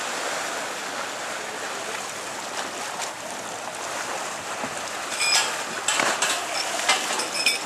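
Steady rushing hiss of open-air harbour noise, wind and water. From about five seconds in it is broken by a run of loud crackles and knocks.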